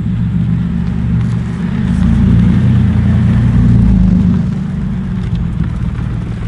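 Holden Commodore SV6's V6 engine running through a de-catted exhaust with a rear muffler half removed and hanging down: a loud, deep drone as the car is moved off slowly. The note swells about two seconds in and eases off after about four and a half seconds.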